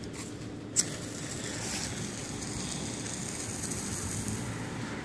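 A single sharp click a little under a second in, then a steady hiss as the fuse of a Panda Tornado firecracker burns down.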